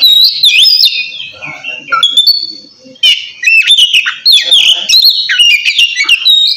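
Oriental magpie-robin singing in the loud 'ngeplong' style: clear whistled notes sliding up and down mixed with quick chattering phrases, in two bursts with a short lull a little before halfway. This is the song used to challenge a rival.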